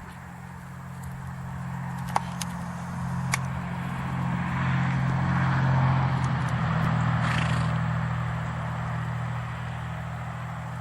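A motor vehicle's engine running with a steady low hum that grows louder to a peak about six seconds in and then fades, as if passing by. Two sharp clicks sound about two and three and a half seconds in.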